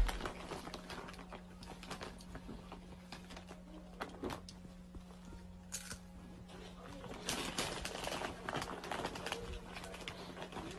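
A plastic potato-chip bag crinkling and rustling as a small child reaches into it for chips, with scattered crackles as she eats, over a low steady hum.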